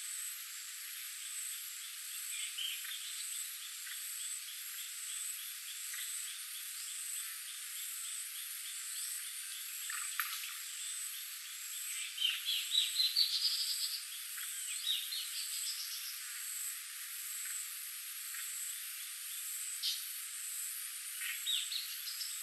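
Frogs and insects calling: a steady high-pitched insect drone under a rapid, even train of clicking calls, with bursts of rising chirps about halfway through and again near the end.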